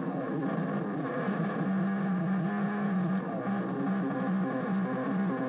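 Javanese Modular DIY modular synthesizer playing a low, buzzy drone with a stack of overtones, its pitch wavering slightly.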